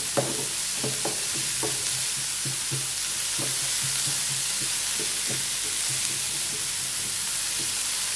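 Diced carrots sizzling in hot oil in a nonstick frying pan, stirred with a wooden spatula: a steady frying hiss with short scrapes of the spatula on the pan about once or twice a second.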